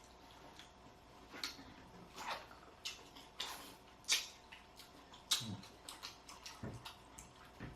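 Chewing and lip-smacking while eating corn on the cob: irregular wet smacks and small mouth clicks, about a dozen scattered through the stretch.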